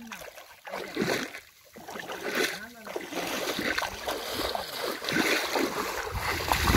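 Muddy shallow water sloshing and splashing as a cast net is hauled in by its rope.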